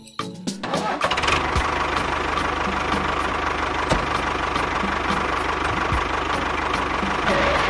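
Tractor engine starting about a second in, then running steadily with a rapid, even knock.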